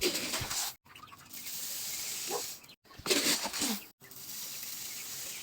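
Chick feed being poured into a feeder: a steady hissing rush of small grains, in two spells separated by brief breaks.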